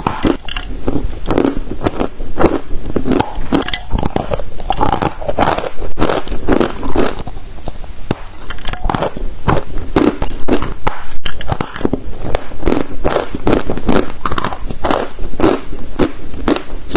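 Chalk being bitten and chewed close to the microphone: a rapid, irregular run of loud crunches.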